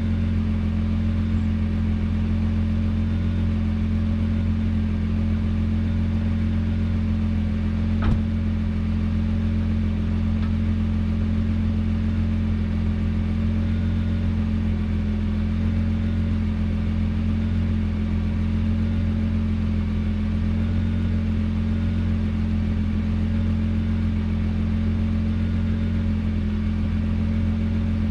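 Nissan GT-R R35's twin-turbo 3.8-litre V6 idling steadily through its stock quad exhaust, warming up after a cold start. A single short click sounds about eight seconds in.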